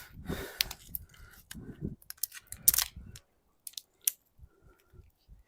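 Hands handling a tyre plug repair kit, taking out a rubber plug strip: scattered sharp clicks and rustles, the loudest a little under three seconds in, then a few faint knocks.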